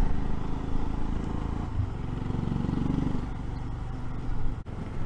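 Royal Enfield Himalayan's single-cylinder engine running steadily while riding through town. There is a sudden brief break in the sound about four and a half seconds in.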